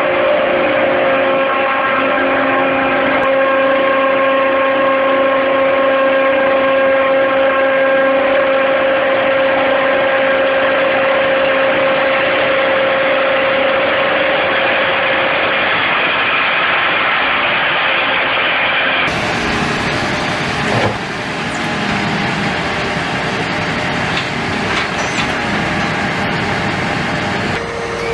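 Heavy machinery engine running steadily with a constant pitch. About two-thirds of the way through it cuts abruptly to a different, noisier mechanical running sound.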